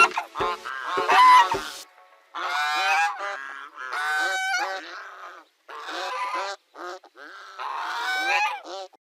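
A bird calling over and over, about one call a second, each one pitched and bending, after music fades out about two seconds in.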